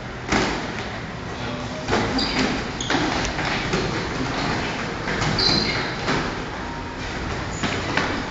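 Boxing gloves thudding as punches land during sparring: six or seven separate impacts at uneven intervals.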